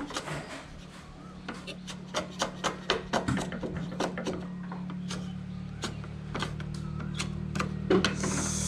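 Chef's knife chopping green herbs on a cutting board: a run of quick knife knocks, about three or four a second, over a steady low hum.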